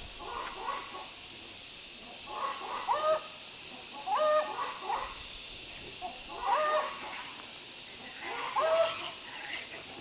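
An animal giving short, high cries, about five of them roughly two seconds apart.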